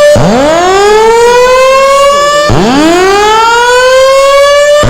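Building fire alarm voice-evacuation system sounding its loud whoop tone: two long rising sweeps, each climbing quickly and then levelling off over about two and a half seconds, with a third starting at the very end.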